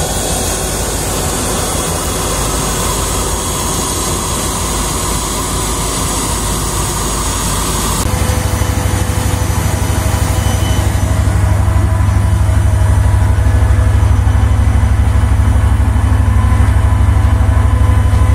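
Steady turbine hiss and whine from a Boeing 777-300ER standing on the apron. About eight seconds in, a louder, low, evenly pulsing engine throb takes over, like a diesel ground vehicle idling close by.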